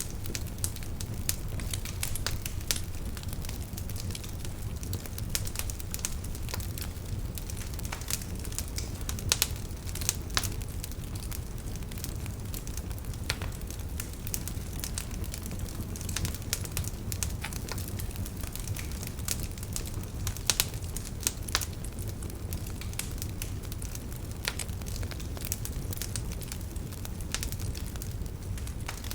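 Wood fire in a fireplace crackling, with many scattered sharp pops over a steady low rumble of the flames; a few louder pops stand out about a third of the way in and again past the middle.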